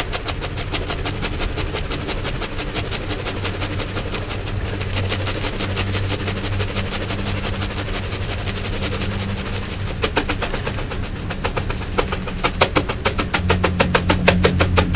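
Round metal mesh sieve shaken rapidly with crumbly powder in it, the wire mesh and rim giving a fast, even rattle as the powder sifts through. The strokes grow louder and more distinct about ten seconds in.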